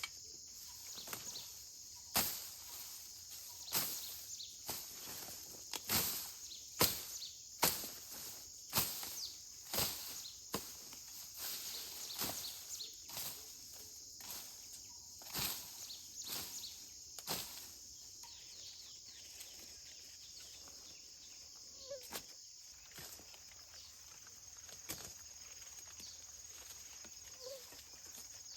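Irregular dry crunches and rustles in dry grass and leaves, about one or two a second, thinning out after about eighteen seconds. A steady high insect drone runs underneath.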